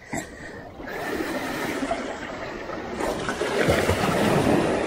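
Seawater sloshing and trickling among wet jetty rocks, an even rushing that grows louder in the second half.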